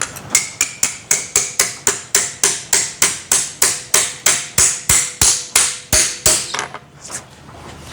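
Quick, even strokes of a hand tool working the brass gland of a slewing cylinder, about four a second for some six seconds, with a faint metallic ring, stopping near the end.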